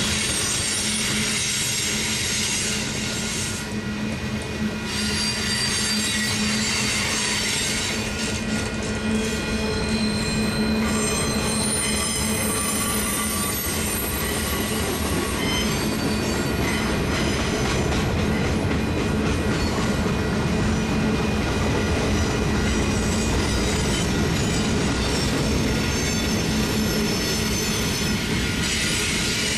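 Union Pacific manifest freight train's cars rolling past close by: a steady rumble of steel wheels on rail, with high-pitched wheel squeal through much of it.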